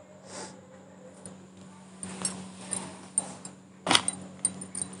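Steel spoon scraping and clinking against a kadhai as mashed boiled potatoes are stirred and fried, in irregular strokes with a sharper clink about four seconds in.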